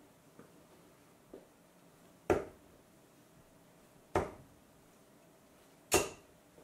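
Three 18-gram darts fitted with steel-tip conversion points thudding into a bristle dartboard one after another, a little under two seconds apart.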